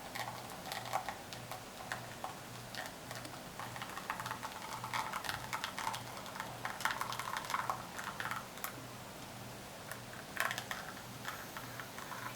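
Espresso running and dripping from the portafilter of a lever-operated La Pavoni Professional into the cup during the pull: an irregular run of small crackling ticks and spatters.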